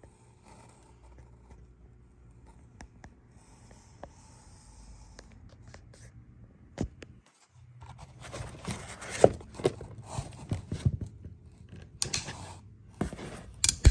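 Handling noise of a Ruger LC carbine: scattered light clicks and scrapes, busier and louder from about eight seconds in, with a few sharp snaps as its flip-up sights are popped up.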